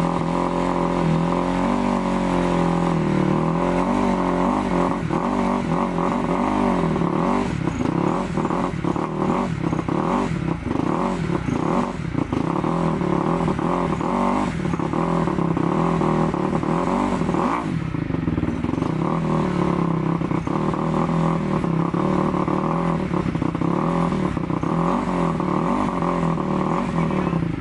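Kawasaki KX250F's single-cylinder four-stroke dirt-bike engine running again after a carburettor clean, idling and revved with short blips of the throttle. The running is choppy and uneven for a stretch before settling.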